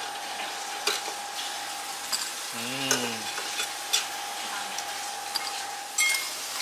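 Metal tongs clicking and scraping on a Philips air fryer's mesh basket as crisp fried pork-fat pieces are picked out, over a steady hiss and a steady high hum that stops about six seconds in. A louder clatter comes at about six seconds.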